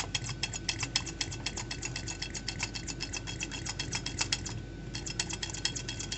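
Rapid, even clicking, about eight clicks a second with a short pause about four and a half seconds in, from a vacuum pump being worked on a diesel fuel supply line to draw fuel through. No vacuum builds.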